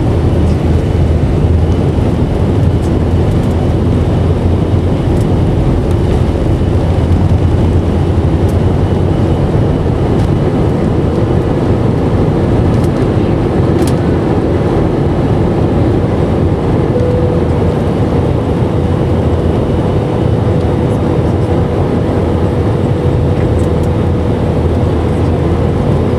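Twin jet engines of an Airbus airliner at takeoff thrust, heard from inside the cabin: a loud, steady, deep rumble through the takeoff roll, liftoff and early climb. About two thirds of the way through, a steady hum joins in.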